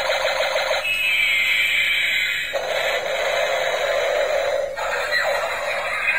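Battery-operated toy helicopter playing its electronic sound effects and tune through a tiny, tinny speaker with no bass. About a second in, a whistling tone falls in pitch for a second and a half.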